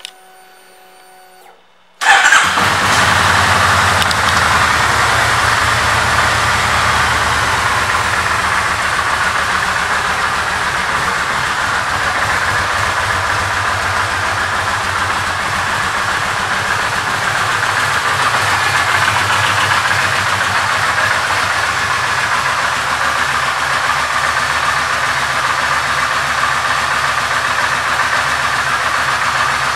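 2005 Kawasaki Vulcan 1500 Classic's V-twin engine starting about two seconds in, then settling to a steady idle.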